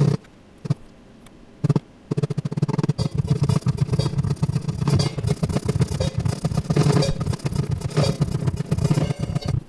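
Acoustic guitar strummed fast and hard through a Quad Eight 7501 mic preamp and EQ444 equalizer: a few separate strums in the first two seconds, then continuous rapid strumming.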